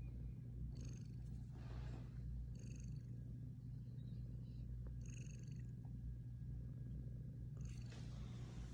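Sleeping house cat snoring: a steady low rumble with a short, high whistling breath every two to three seconds.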